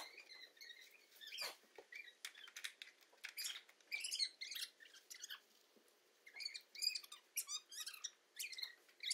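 Faint, repeated short high chirps, like small birds calling, with light rustling and crackling of loose hay.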